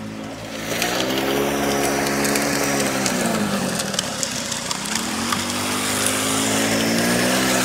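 Small engine of a drift vehicle running and being revved, its pitch dipping around the middle and climbing again, with a gritty scraping, crackling noise over it.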